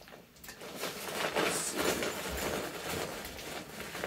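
Thin plastic bag crinkling and rustling in irregular spurts as it is handled and pulled open.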